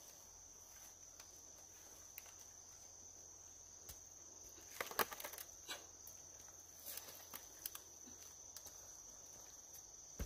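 Insects, crickets or the like, trilling steadily on one high pitch, faint. Scattered sharp clicks and knocks, with a cluster about five seconds in and a few more around seven seconds.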